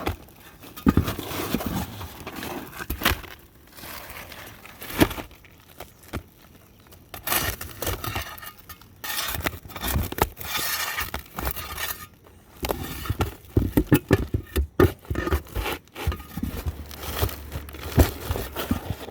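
Brittle roof shingles scraping and cracking in irregular bursts as they are lifted and worked loose; the shingles crease and break into pieces rather than coming up whole.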